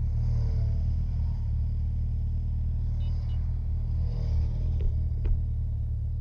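Motorcycle engine idling steadily with a low, even rumble. Faint voices in the background and two short clicks about five seconds in.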